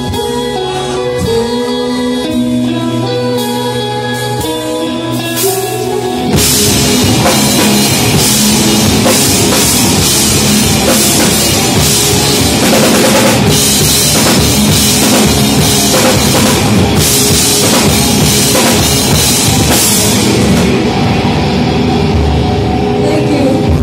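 Live rock band playing: a quieter passage of ringing electric guitar notes, then about six seconds in the full band comes in loud with pounding drums and crashing cymbals. Near the end the cymbals drop out while the guitars keep ringing.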